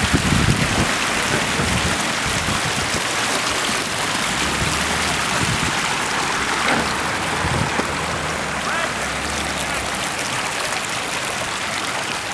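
Wind rushing over the microphone as a steady hiss, with low buffeting in the first second. A faint low hum from the Nissan Patrol's engine sits under it through the middle.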